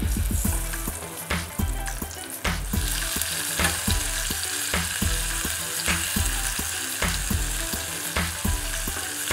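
Sliced onions sizzling as they sauté in a small stainless-steel saucepan, stirred with a wooden spatula; the sizzle grows stronger about three seconds in. A background music track with a steady beat plays underneath.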